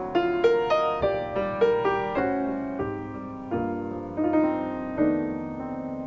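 Background piano music: a slow run of notes and chords, each struck and left to fade.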